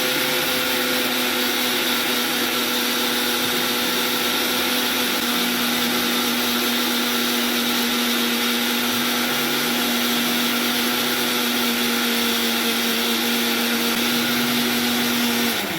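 Electric blender grinding dried crayfish, its motor running at a steady speed with a constant hum, then winding down and stopping near the end.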